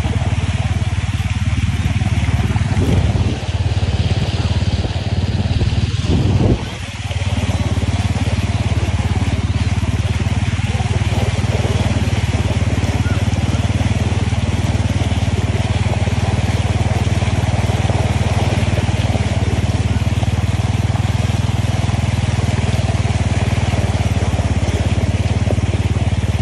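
A vehicle engine running steadily as it moves through floodwater, with a brief dip in level about six and a half seconds in.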